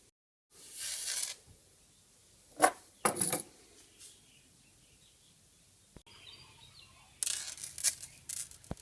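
A fine gold necklace chain handled and cleaned: short rustling and metallic jingling of the links, with a few sharp clicks, the busiest stretch near the end.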